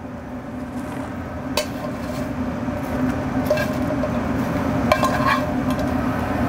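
Metal tongs scraping and clinking against a metal pan as seasoned fries are picked out: a few sharp, spaced clinks over a steady low hum.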